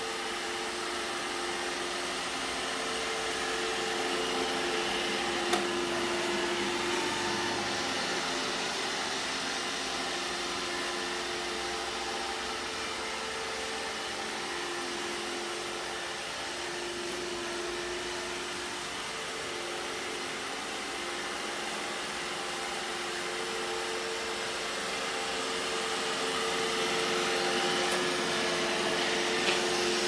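iRobot Roomba e5 robot vacuum running on a hard wooden floor: a steady motor and suction hum with a couple of held tones, growing a little louder near the end. A single sharp click sounds about five seconds in and another near the end.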